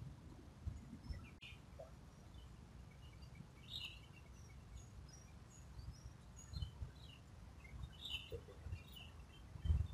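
Faint, scattered short bird chirps over a low rumble, with a few dull thumps, the strongest near the end, and one sharp click about a second and a half in.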